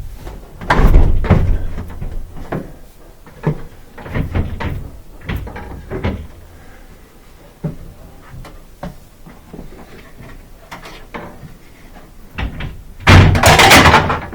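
A clothes dryer being pulled forward and manhandled: a run of knocks, thumps and scrapes, with a loud scraping stretch about a second in and a louder one near the end.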